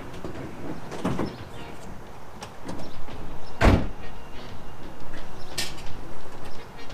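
Nissan 370Z's driver's door shut once with a solid thud about halfway through. Softer knocks come before it and a sharp click after.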